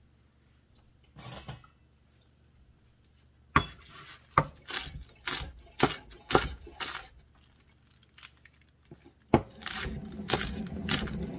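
Chef's knife chopping hosta leaves on a wooden cutting board: a run of sharp knocks of the blade on the board, about two or three a second, starting a few seconds in, then after a short pause the chopping starts again near the end.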